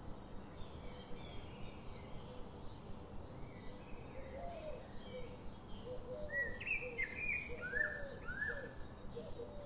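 Birds chirping in short repeated calls, some high and some low, growing louder from about six seconds in, over a steady background hiss.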